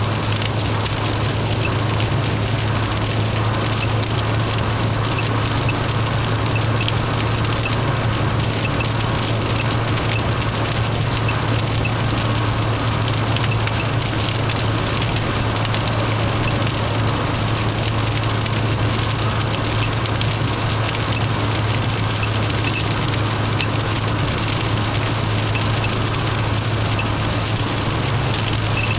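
Steady road and engine noise heard from inside a car cabin travelling at speed on an expressway, with a constant low drone.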